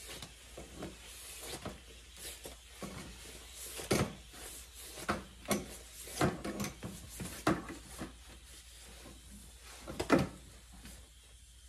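Irregular clicks and knocks of a hose fitting being handled at a tractor tire's valve stem, the loudest about ten seconds in.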